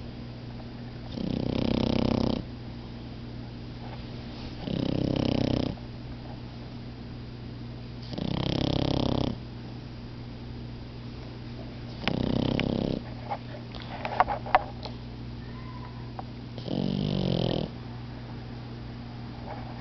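Sleeping French bulldog snoring: five long snores about every four seconds. A few short sharp clicks come between snores in the middle.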